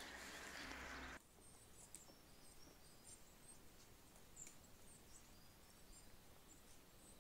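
A louder steady noise cuts off about a second in, leaving quiet forest ambience with faint, short, high bird chirps scattered through it.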